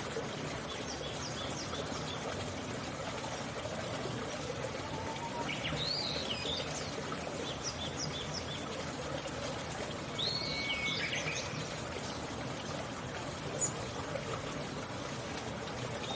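Wild birds chirping and calling now and then, with two fuller calls about six and ten seconds in, over a steady rushing background like trickling water.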